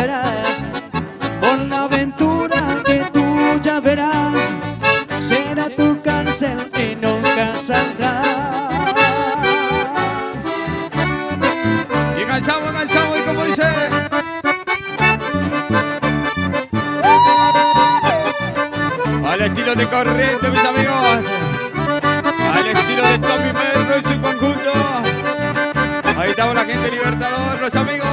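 Instrumental accordion music in a traditional folk style, with a steady beat.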